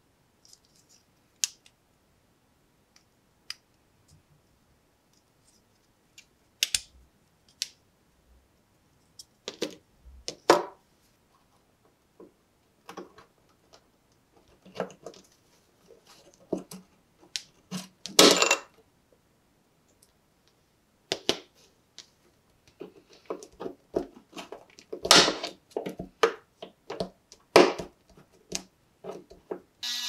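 Small metal pocket-knife parts clicking and clacking against each other as they are handled. The clicks come irregularly and grow busier in the second half, with a few louder clacks.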